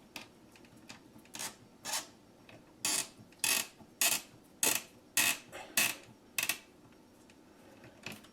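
Stranded light-fixture wire and solid house wire being twisted together by hand into a splice, a short raspy scrape with each turn. About nine scrapes come at a steady pace, one every half second or so.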